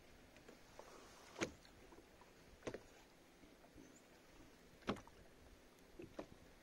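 A handful of sharp knocks and slaps on a plastic kayak's hull, about five spread over a few seconds, the second and fourth the loudest, with near silence between them.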